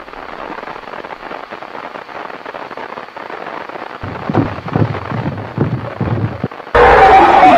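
Crackling tape-static hiss, then a run of heavy low thuds about three a second. Near the end a sudden, very loud shrill screech cuts in, falling in pitch.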